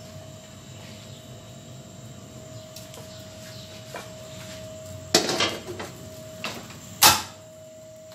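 Aluminium couscous steamer being set back onto its pot on a gas stove: a clatter of metal on metal about five seconds in, then one loud sharp knock about two seconds later.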